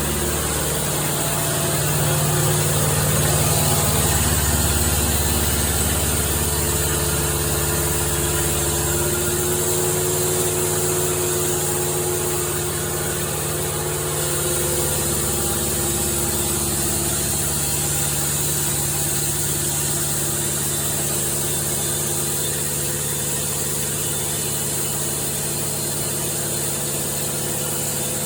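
An engine running steadily, a little louder for several seconds near the start, with small shifts in its pitch.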